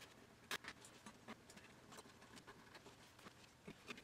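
Faint, scattered light clicks and taps as small parts of an opened Tandon TM-100 5.25-inch floppy drive are handled. The clearest click comes about half a second in.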